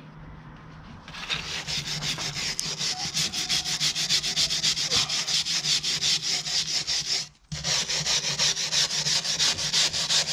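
Hand wire brush scrubbing flaking paint off the steel rim of a David Brown 996 tractor wheel, in quick, rhythmic back-and-forth strokes. It starts about a second in and stops briefly about seven seconds in.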